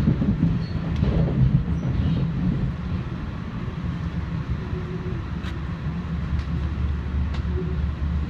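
Commuter train running, heard from inside the passenger car: a steady low rumble with a few faint clicks, easing a little about three seconds in.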